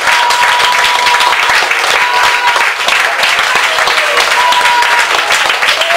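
Church congregation applauding and calling out in praise, steady clapping throughout, with some long held tones over it.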